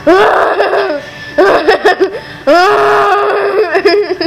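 A person's voice making loud, drawn-out non-word cries, three in a row, the pitch sweeping up at the start of each and then holding.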